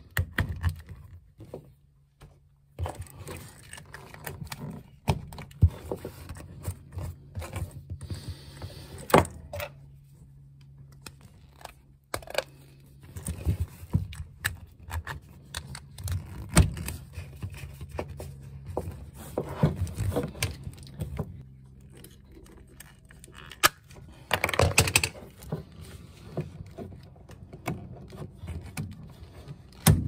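Plastic pipe and push-fit elbow fittings being handled and pushed onto a water pump's outlet: scattered clicks, knocks and rattles of plastic parts, over a low steady hum.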